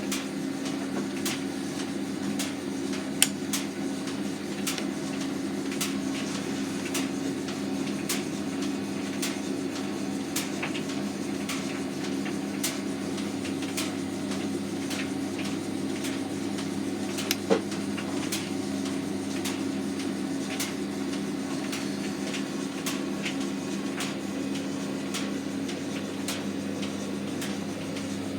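Hotpoint FETV60 tumble dryer running with a steady motor hum, its drum turning on a newly replaced bearing. Irregular light clicks and knocks sound throughout, with a louder knock about three seconds in and another a little past halfway.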